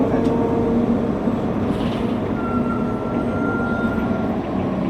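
Nova Bus LFS city bus running, heard from inside the cabin: a steady engine and road rumble, with a thin high whine that comes in about halfway through and fades a second and a half later.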